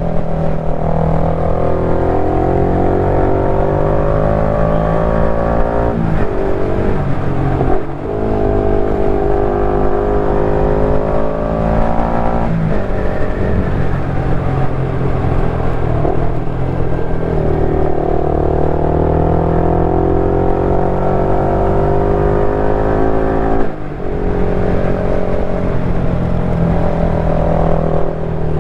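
KTM 390 Duke's single-cylinder engine under way, its pitch rising and falling with the throttle, with short breaks in the note at gear changes, over a steady rush of riding noise.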